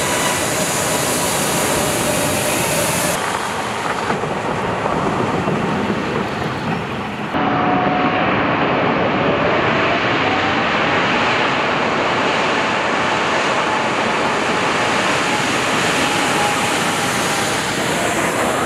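Irkut MC-21-300 airliner's turbofan engines running at high power during a high-speed run through standing water on the runway, a loud steady rush mixed with the hiss of spray thrown up by the wheels. A faint engine whine glides in pitch in the second half, and the sound changes abruptly twice at cuts.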